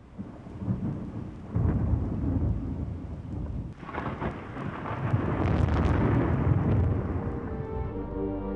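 Thunderstorm: thunder rumbling, building in loudness, with sharp cracks about halfway through. Music starts to come in near the end.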